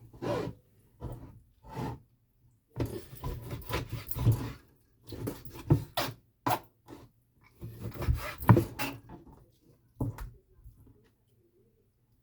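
Handling noise close to the microphone while a phone stand is being set up: irregular rubbing and scraping with sharp knocks, in bursts for about eleven seconds, then it stops.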